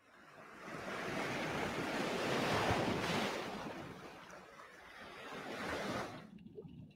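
Sea waves surging and washing back: a rushing swell that builds to a peak and fades, then a smaller second swell near the end.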